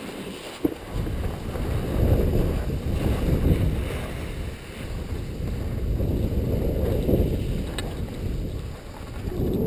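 Wind rushing over an action camera's microphone while skiing downhill, mixed with skis sliding on packed snow; the rushing swells and eases with speed and turns. A short knock about half a second in.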